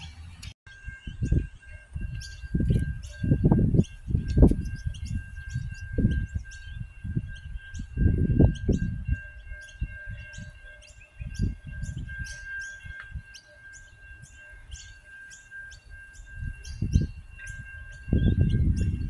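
Wind gusting on the microphone in irregular low rumbles, with small birds chirping and a steady high-pitched tone behind them. The low rumble grows heavier near the end.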